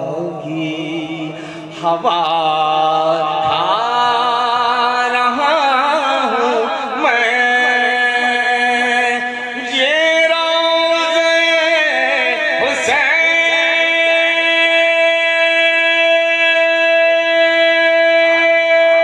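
A man singing a manqabat into a microphone, a wordless melismatic passage that glides up and down. About halfway through it settles into one long held note.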